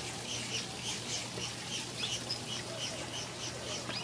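A small bird chirping rapidly and evenly, about four short high chirps a second, each with a paired higher note.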